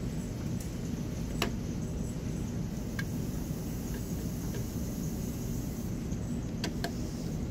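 Light clicks of a small plastic model helicopter and its rotor being handled and set down: one about a second and a half in, one about three seconds in, and a quick pair near the end, over a steady low room rumble.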